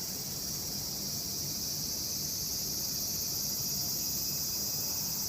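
Cicadas calling in a steady, unbroken, high-pitched drone.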